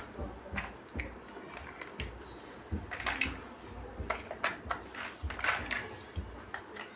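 Plastic building bricks clicking and clattering as they are handled and pressed together, in irregular sharp taps a few times a second.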